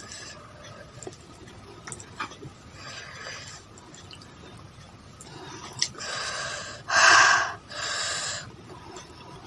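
A person eating close to the microphone: faint mouth clicks, then three sharp breathy puffs of air in a row about six seconds in, the middle one loudest.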